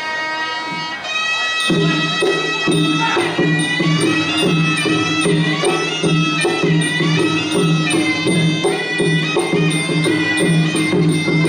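Traditional Kun Khmer fight music: a reedy sralai oboe plays a held, wavering melody. About two seconds in, a steady drum beat with small cymbals joins it and carries on.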